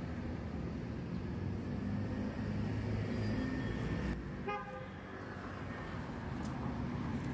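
Steady street traffic rumble, with a brief vehicle horn toot about four seconds in.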